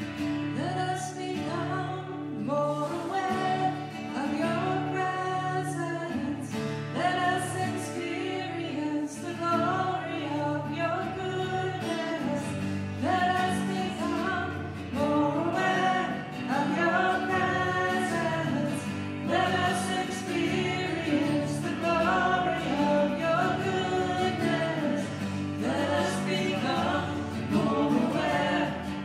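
Worship song sung by a small group of voices with acoustic guitar strumming beneath.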